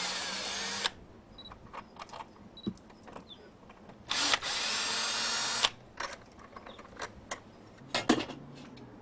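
Cordless drill-driver backing out the screws of the door-jamb strike plates. The motor runs in two spells, under a second at the start and about a second and a half midway, with small clicks and knocks of the tool and plate between.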